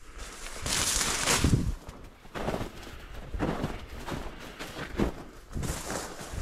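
Footsteps pushing through dense grass or brush, a swishing, crunching step with a low thud about once a second.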